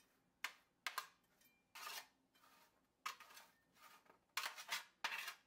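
Spatula scraping along a metal sheet pan as roasted cauliflower florets and carrot slices are turned over, in a series of short, separate scrapes about one a second or a little faster.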